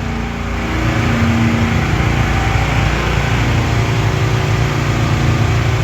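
Farm tractor engine running steadily, a low continuous hum that swells slightly about a second in.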